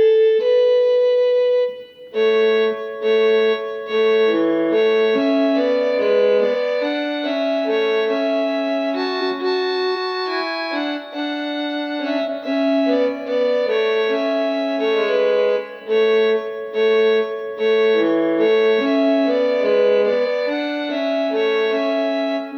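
LP6110E electronic keyboard's sampled violin tone layered with cello, playing a slow melody of held notes in two lines, a higher part over a lower one.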